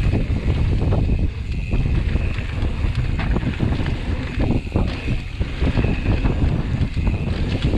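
Wind buffeting the microphone of a mountain biker's camera at speed down a flow trail, with tyres rolling on packed dirt and the bike rattling over bumps.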